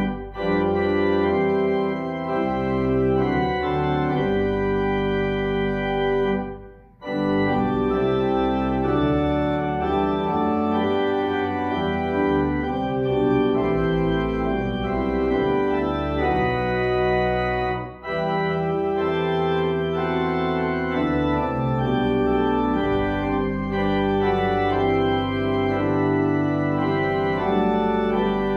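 Church organ playing music in sustained chords, with a short break in the sound about seven seconds in and a brief lift about eighteen seconds in.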